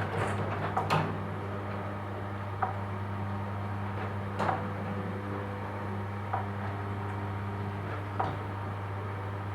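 Garage door opener motor starting suddenly and running with a steady low hum as it closes the door, the door knocking and rattling a few times at irregular moments.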